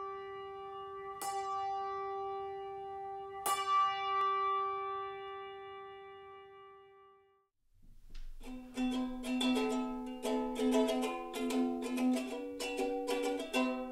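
A bell-like chime struck twice, each strike ringing on in a long clear tone that fades away a little past halfway. After a brief gap, a ukulele is plucked in a quick run of melody notes.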